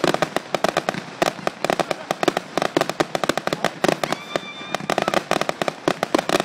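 Fireworks display in a rapid barrage: a dense string of sharp bangs and crackling reports, many a second, with a brief high whistle about four seconds in. Recorded on a phone microphone.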